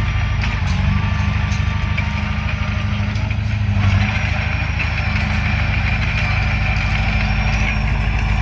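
Bulldozer's diesel engine running steadily with an even low pulse.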